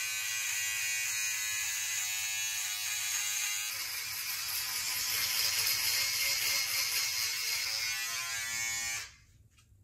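Handheld electric shaver buzzing steadily as it shaves off a mustache. Its tone changes a little about four seconds in, and it cuts off about nine seconds in.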